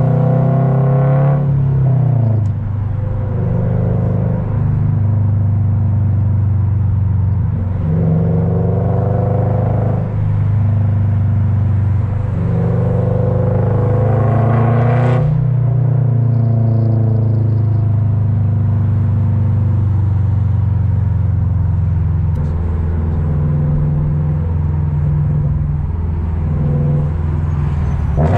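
Straight-piped Toyota GR86's 2.4-litre flat-four exhaust heard from inside the cabin while driving. The engine note climbs in pitch under acceleration a few times, with the longest pull about halfway through ending sharply. Between pulls it settles into a steady low cruising drone.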